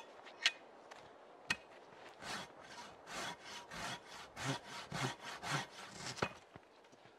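Silky handsaw cutting through a downed log in quick, even strokes, about three a second, from about two seconds in until they stop a little after six seconds. A few sharp clicks come in the first second and a half.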